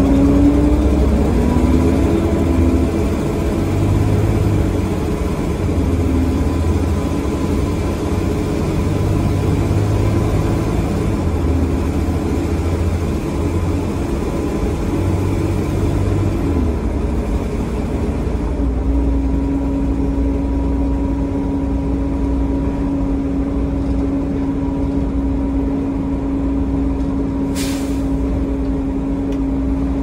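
Volvo B7TL double-decker bus's engine pulling under way, heard from the upper deck. Its blown exhaust is in the sound. The engine note climbs and shifts through the first half, then settles into a steady whine from about two-thirds in. A short air hiss comes near the end.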